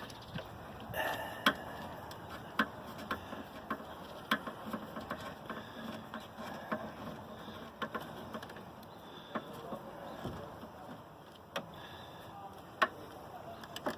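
Irregular sharp clicks and taps of hand tools and parts against a plastic grille while a light kit is being fitted, a few louder knocks among them.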